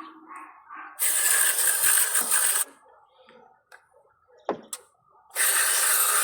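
Aerosol spray can hissing in two bursts of about a second and a half each, cleaner being sprayed into the engine computer's wiring connectors to clear corrosion. A couple of short clicks come between the bursts.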